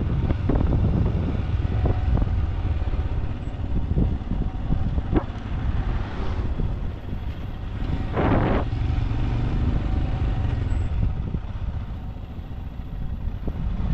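Motorcycle running on the road, a steady low rumble mixed with wind noise, with scattered clicks and a short louder rush about eight seconds in.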